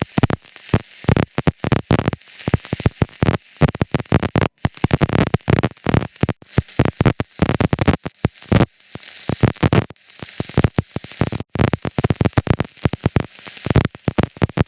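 Stick-welding arc burning a 6013 electrode, a steady, irregular crackle and sizzle with a few momentary breaks. It cuts off abruptly at the very end as the arc is broken.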